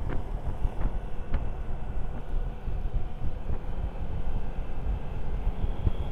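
Motorcycle underway: wind buffeting the microphone over the steady running of the engine.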